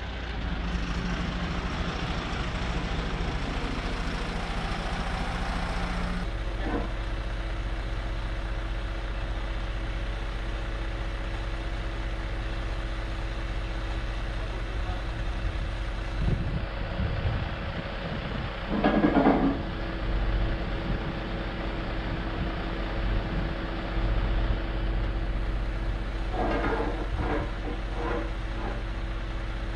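Diesel engine of a flatbed tow truck running steadily, its note changing about six seconds in, with a few short louder sounds near the middle and again towards the end.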